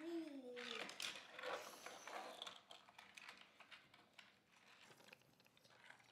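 Small die-cast toy cars clicking and clattering as they are handled and rolled on a plywood play board, busiest in the first few seconds and then sparse faint clicks. A child's brief falling vocal sound comes right at the start.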